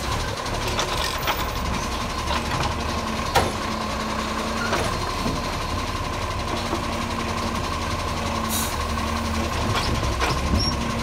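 Side-loader garbage truck running while its automated arm lifts a wheelie bin, tips it into the body and lowers it again, with a steady whine over the engine and a few sharp knocks, the loudest about a third of the way in.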